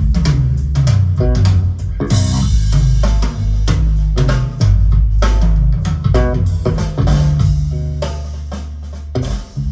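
Rock-style music with bass guitar, guitar and drum kit, played back through JBL Studio 630 loudspeakers with a subwoofer, heavy in the bass.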